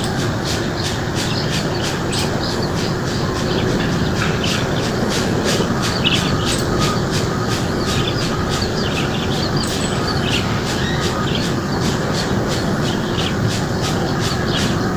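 Birds chirping and calling over a steady rushing background noise, with an even high pulsing about three times a second.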